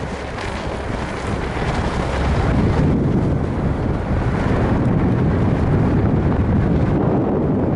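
Wind rushing over a microphone mounted on the outside of a Renault Duster driving on a loose, powdery dirt track, over a steady low rumble of the moving vehicle. The noise is continuous and grows a little louder about two seconds in.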